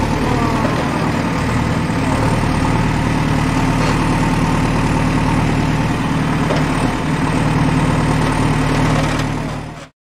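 Trencher engine running steadily while the digging chain cuts through soil. The sound fades in at the start and fades out near the end.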